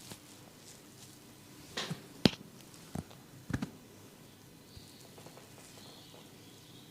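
A few short, sharp cracks and slaps from a barber's hands during a head and neck massage, the loudest a single crack a little over two seconds in, followed by two more about a second and a second and a half later.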